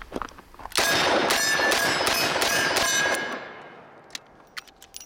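Smith & Wesson 586 Classic .357 Magnum revolver fired in a rapid string of about six shots, roughly two a second, with steel targets ringing on the hits. A few light metallic clicks follow near the end.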